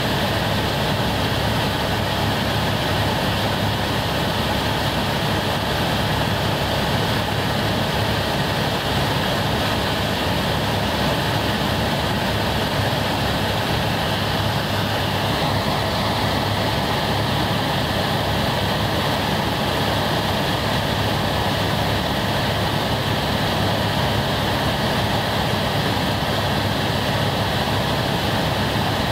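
Helicopter turbine and rotor noise heard from inside the cabin in steady flight: a constant loud drone with a steady high whine over it, shifting slightly in pitch about halfway through.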